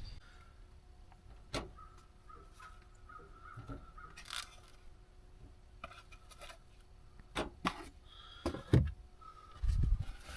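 A few scattered sharp knocks and clatter, the loudest near the end, with faint bird calls in the quiet between them.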